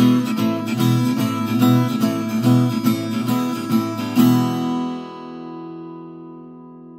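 Acoustic guitar strummed in a steady rhythm, then a final chord struck about four seconds in and left to ring out, slowly fading.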